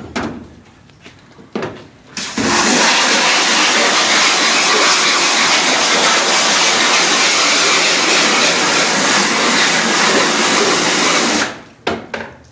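Water spray hissing steadily against a screen-printing screen as it is rinsed off after scrubbing with ink detergent, starting about two seconds in and cutting off shortly before the end. A couple of short knocks come before it.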